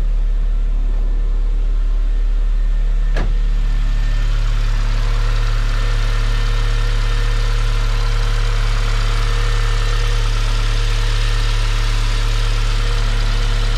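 BMW N46 four-cylinder engine of a 2009 E87 118i idling steadily, running on a newly fitted Valvetronic motor and eccentric shaft sensor that were meant to cure its rough running, stalling and 2851 fault code. A single sharp click about three seconds in.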